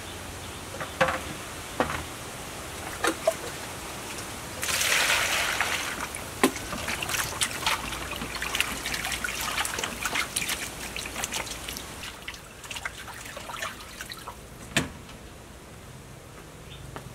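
Raw pork ribs being washed by hand in an aluminium basin of water: a burst of water about five seconds in, then repeated splashing and dripping that tapers off. A few light knocks come in the first three seconds.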